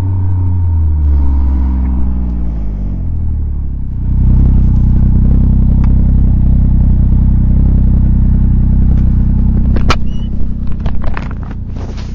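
Snowmobile engine running on the trail: its pitch drops as it slows over the first few seconds, then it holds a louder, steady note from about four seconds in. A few sharp knocks and clatter come near the end.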